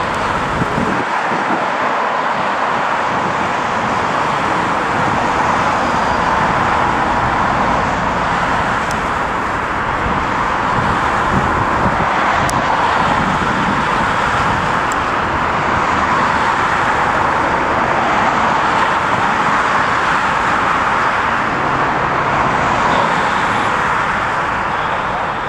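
Twin-engine jet airliner taking off, its engines at take-off thrust making a loud, steady rushing noise that holds unchanged throughout.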